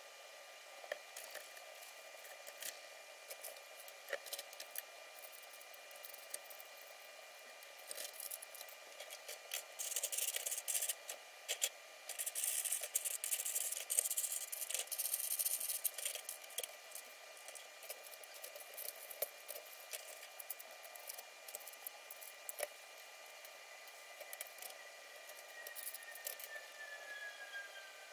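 Small plastic parts-organizer drawers being pulled and pushed and small jewelry pieces handled: scattered light clicks, with a few seconds of louder rustling and scraping about ten seconds in.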